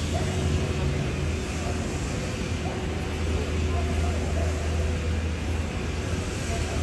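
Busy city street ambience: a steady low rumble of traffic with the voices of passing pedestrians.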